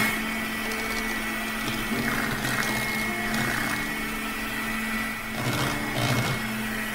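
Electric mixer running steadily, beating eggs, sugar and vanilla into a fluffy batter.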